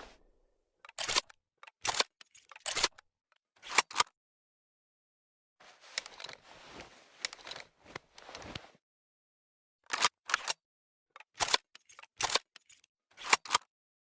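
Bolt of a Remington Model 700 bolt-action rifle being worked: a series of sharp metallic clicks and clacks in two groups, with a fainter rattling in between.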